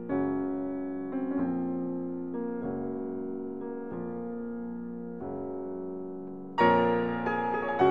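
Background music: piano chords, each struck and left to fade, changing about once a second, with a louder chord near the end.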